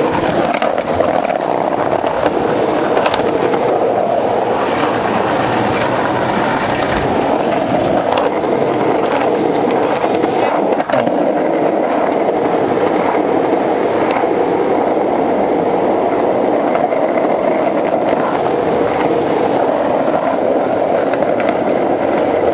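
Skateboard wheels rolling steadily over city pavement, a continuous loud roll noise with a few small clicks over joints and cracks.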